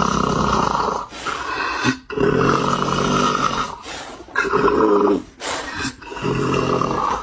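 Loud, rasping snoring: a string of about six snores in quick succession, each around a second long with short breaks between.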